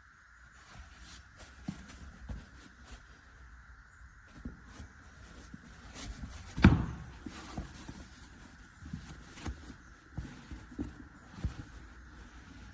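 Scattered soft knocks and handling noises, with one louder thump a little past halfway, over a steady faint hum.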